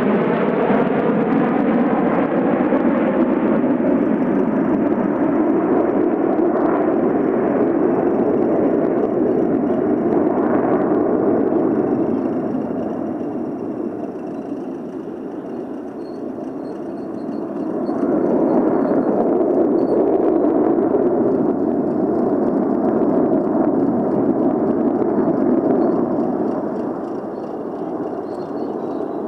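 Jet engines of a close formation of MiG-29 and Su-27 fighters flying past: a loud, steady roar with a wavering, phasing sweep in the first few seconds. It eases off about halfway through and swells again a few seconds later.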